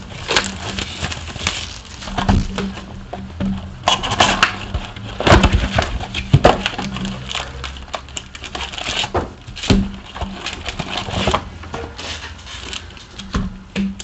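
A trading-card box and its foil card packs being torn open and handled: irregular crinkling, ripping and tapping noises, with background music underneath.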